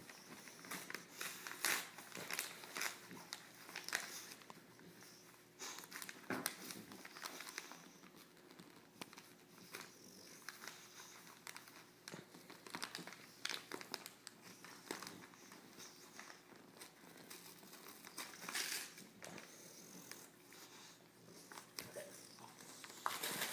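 A bulldog nosing and biting at a gift-wrapped package, crinkling and tearing the wrapping paper in short, irregular rustles.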